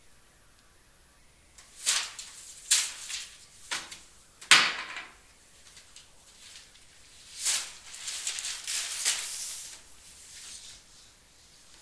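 A series of short, hissy rustling noises: a few separate ones in the first half, the loudest about four and a half seconds in, then a denser run of them after about seven seconds.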